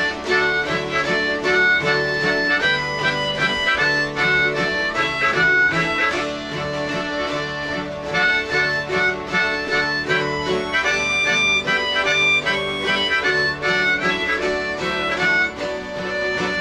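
A harmonica plays the lead melody of a folk tune over a steady strummed accompaniment from an acoustic guitar and mountain dulcimers.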